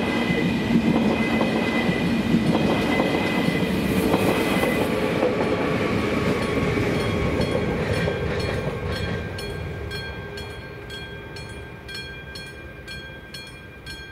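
ÖBB Railjet passenger cars rolling past at speed, the wheels clattering over the rails, fading away about halfway through. As it fades, the level crossing's electronic warning bell is heard ringing steadily at about two strikes a second.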